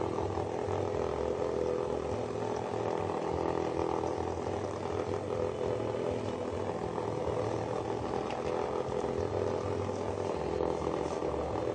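Several cheap knock-off Hexbug Nano vibrating bug toys buzzing steadily as they skitter about.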